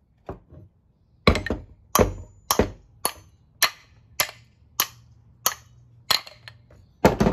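Hammer blows: about a dozen sharp strikes at a steady pace of roughly one every half second, driving at a stuck part in the impact wrench's housing to knock it out.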